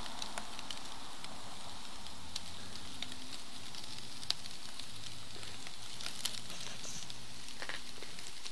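Delmonico and ribeye steaks sizzling on a hot grill: a steady hiss with a few sharp pops scattered through it.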